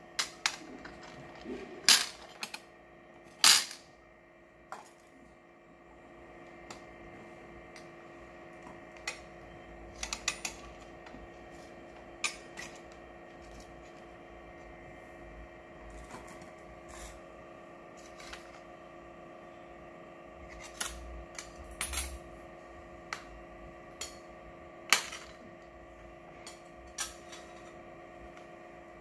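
Scattered sharp clicks and knocks of hard crab shell and utensils against a ceramic plate as a boiled crab is pulled apart by hand, the loudest two about two and three and a half seconds in, over a steady hum.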